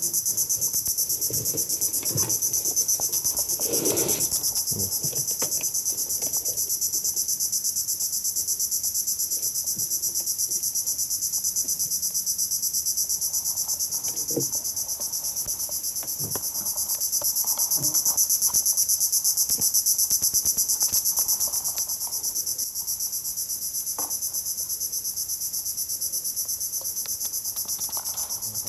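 Loud, steady chorus of insects chirring high and with a fast pulse, from the riverside vegetation. A few light knocks of gear being handled on the wooden boat deck sound under it.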